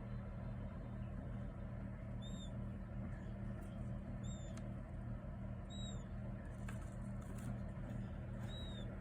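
King quail chicks peeping: four short, high, arched cheeps, spaced a second or two apart, over a steady low hum.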